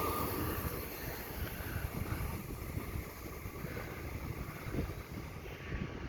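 REM light-metro train (Alstom Metropolis) pulling away. Its high, steady hum fades out within the first second, leaving an uneven low rumble of wind on the microphone.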